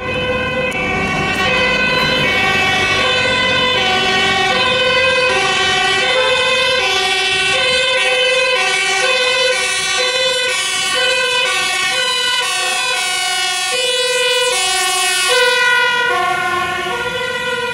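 Dutch two-tone sirens of a fire engine and the emergency vehicles following it, each switching back and forth between a high and a low note, with more than one siren overlapping. They grow loudest as the fire engine passes close by near the end, and the notes drop slightly in pitch after it passes.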